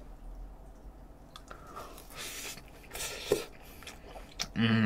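A man chewing a mouthful of soft okonomiyaki, with quiet wet chewing sounds and one small click about three seconds in. Near the end he gives a short voiced hum.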